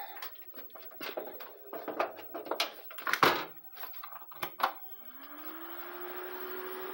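Clicks and knocks of hands handling parts inside an open desktop PC case, the loudest about three seconds in. About five seconds in the PC powers on and its CPU cooler fan spins up, a rising whir that settles into a steady hum. This is the power-on test of a newly fitted video card.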